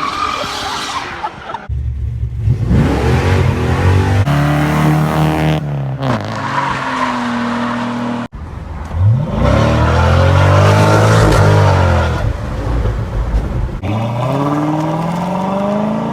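Car engine revving hard, rising and falling in pitch again and again, with tyres squealing as the car slides in a drift. The sound cuts off abruptly several times and starts again.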